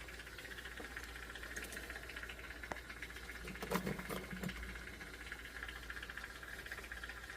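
Jeweler's soldering torch flame hissing steadily with a fine crackle. A single light clink of metal comes a little under four seconds in.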